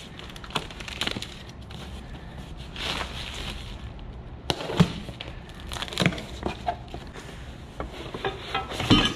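Cardboard box being opened by hand: a knife slitting the packing tape, then cardboard flaps pulled back, scraping and crackling in irregular bursts, with sharp knocks about halfway through and the loudest near the end as a black plastic filter part is lifted out.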